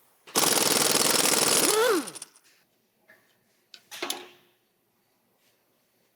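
Impact wrench hammering hard for about a second and a half to break loose the front hub nut on the CV-joint axle, then winding down with a falling whine. A couple of light knocks follow about two seconds later.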